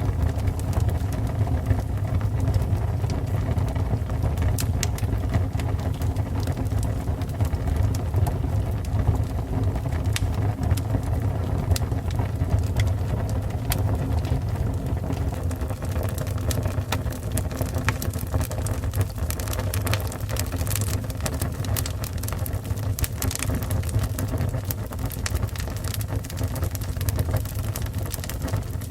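Fire burning: a steady low rumble with frequent sharp crackles and pops scattered throughout.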